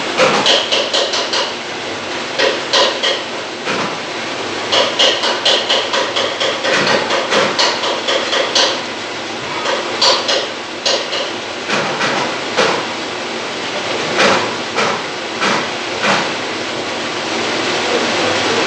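Metal lathe running while turning a stepped rotor shaft, with bursts of rapid sharp metallic clicking and clatter over a steady machine noise.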